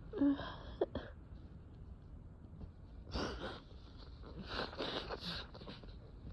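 A person's breathing noises during an allergy attack, in the quiet after a sneeze: a short vocal catch near the start, a noisy burst of breath about three seconds in, and a quick run of short breathy bursts around five seconds.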